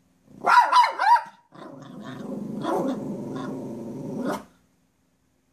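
Black poodle giving three quick high yips, then a long low growl of about three seconds, at a squirrel it is watching outside.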